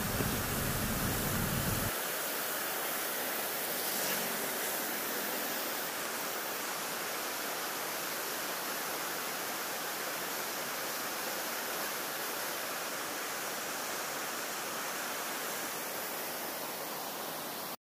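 Steady rushing of water pouring from a dam's open spillway gates into the rapids below, with a low rumble underneath that drops away about two seconds in.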